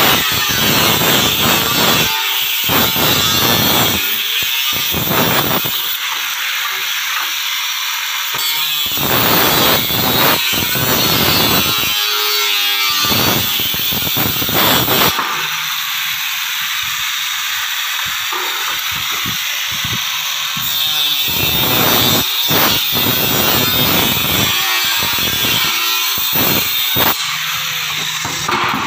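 Corded angle grinder with a cut-off disc cutting across a corrugated steel decking sheet: a loud, continuous grinding hiss of abrasive disc on thin steel that bites and eases again and again as the disc works along the ribs, easing off near the end.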